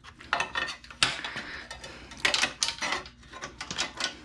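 Metal hand tools and engine parts clinking, knocking and scraping in a string of sharp, uneven clicks.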